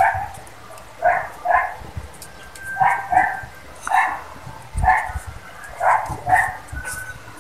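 A dog barking repeatedly, about nine short barks, several coming in quick pairs.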